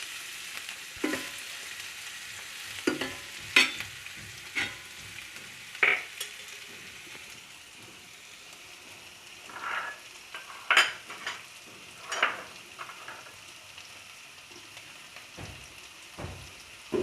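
Shallots and garlic frying in oil in a pan, a steady sizzle, with a spoon scraping and knocking against the pan every so often as they are stirred.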